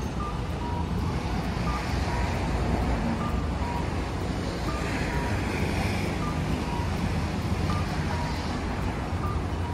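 Steady low rumble of trams at a busy tram stop as a Hiroden low-floor tram creeps in to the platform, with a faint short electronic beep repeating at two alternating pitches about once a second.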